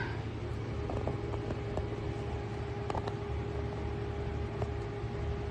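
Steady low mechanical hum with a faint steady tone over it, and a few faint ticks scattered through.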